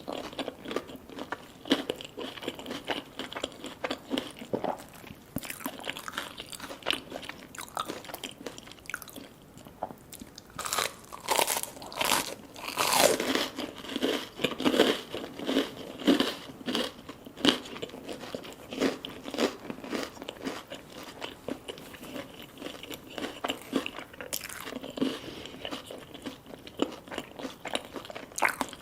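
Close-miked eating of crispy fried food: irregular crunching bites and chewing, busiest about halfway through.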